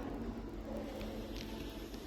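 Steady low rumble with a faint background hum, without sharp events.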